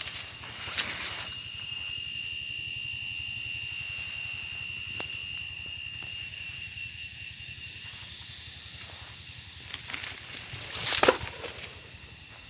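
Footsteps and rustling through coffee foliage and dry leaf litter, in short bursts at the start, just under a second in, and loudest about eleven seconds in, over a steady high-pitched whine.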